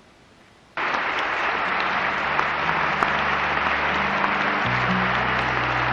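Audience applause, starting abruptly about a second in after a brief hush, with steady sustained music chords underneath that shift to new notes near the end.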